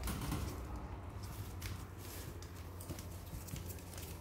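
Yorkshire terrier puppies scrabbling over newspaper and the wire crate's edge and pattering on a hard floor: scattered light clicks and rustles, over a low steady hum.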